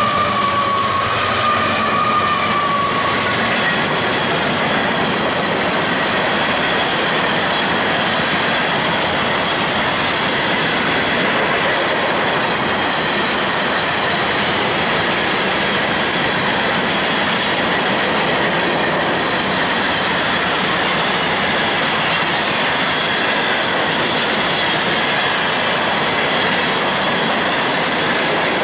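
Loaded freight cars of a long train rolling past at close range: steady wheel-on-rail noise with a faint high squeal from the wheels. In the first few seconds the falling whine of the trailing GE ES44C4 locomotive fades away.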